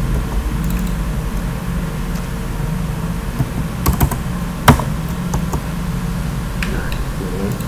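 Computer keyboard keystrokes and mouse clicks: a handful of sharp clicks between about three and a half and five seconds in, the loudest near five seconds, with a few fainter ticks later, over a steady low hum.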